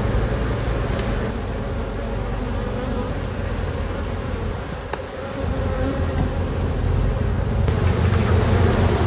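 Honeybees buzzing in a steady, dense hum around an open hive, the colony's flight noise easing briefly about five seconds in.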